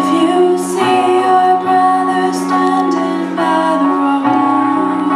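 A slow song: a voice singing over steady, sustained chords.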